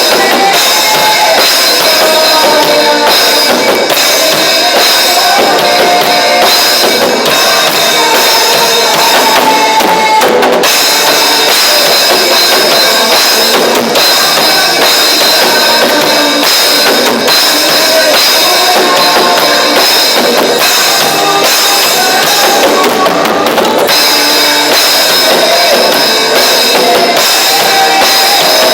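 Live church worship band playing loud music, with a drum kit keeping a steady beat on bass drum and snare.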